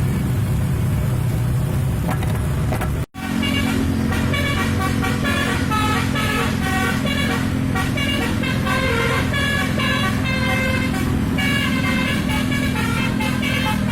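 Road traffic rumble, then after a sudden cut about three seconds in, a bus's telolet multi-tone horn plays a quick tune of stepped notes over the bus engine's steady hum.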